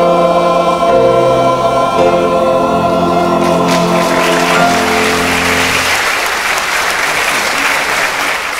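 Mixed choir holding the final sung chord of a song. About halfway through, audience applause breaks out and carries on as the chord dies away.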